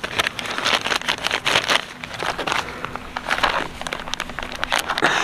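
Yellow spice packet crinkling and rustling as powdered spice is shaken out of it: an irregular run of small crackles.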